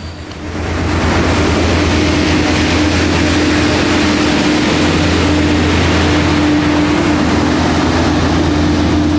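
Diesel-powered Plasser & Theurer rail track maintenance machines running as they roll past close by: a loud, steady engine drone with a held hum, louder from about half a second in.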